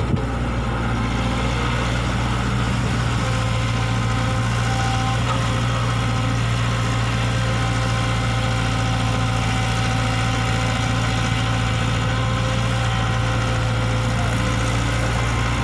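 E120B hydraulic excavator's diesel engine running steadily, a constant low hum at an even level.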